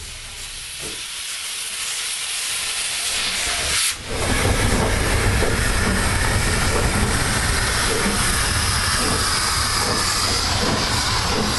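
Steam locomotive 475.179 hissing as steam vents from its open cylinder drain cocks, with a low rumble underneath. The hiss swells over the first few seconds, drops out for a moment about four seconds in, then runs on loud and steady.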